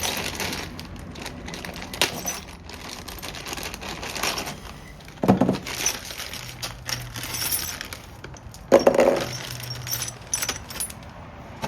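Metal bike-rack parts and bolts being handled: repeated clinks and rattles, with two heavier metal clunks about five and nine seconds in.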